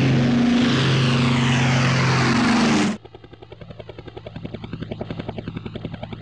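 A loud intro track with a steady low hum and a sweeping whoosh, which cuts off abruptly about three seconds in. It gives way to a radio-controlled helicopter's rotor running with a rapid pulsing whir that shifts in tone, as in a flyby.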